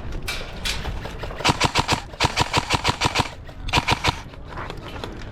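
Airsoft rifle firing on full auto, about ten shots a second: a long burst of nearly two seconds starting about one and a half seconds in, then a short burst near the end.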